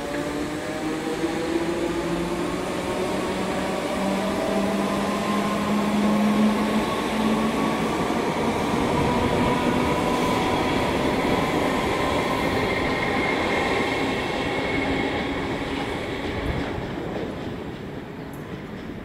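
Long multiple-unit train running along the track, a steady rumble with several humming tones that slowly bend in pitch. It fades near the end as the train draws away.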